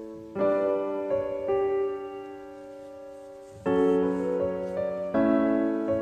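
Background piano music: slow chords struck a few seconds apart and left to ring out.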